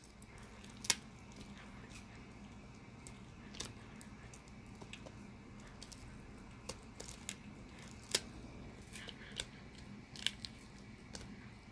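Italian Greyhound gnawing on a bully stick: irregular sharp crunches and clicks of teeth biting into the dried chew, a second or a few seconds apart.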